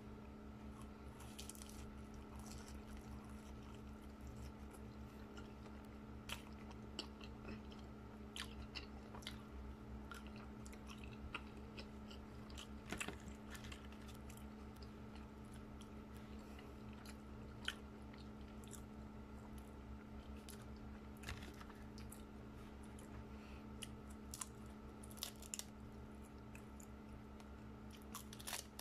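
Close-up eating sounds: biting and chewing baked sushi wrapped in roasted seaweed (nori), with scattered short crisp crunches over a steady background hum.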